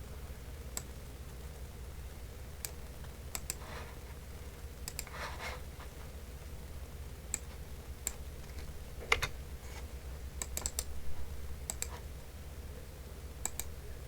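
Computer keyboard typing: scattered keystrokes and clicks, some in quick runs, with pauses between, over a low steady hum.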